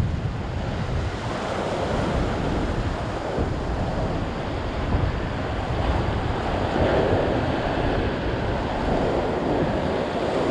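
Ocean surf washing and foaming around a rock ledge, a steady rush, with wind buffeting the microphone.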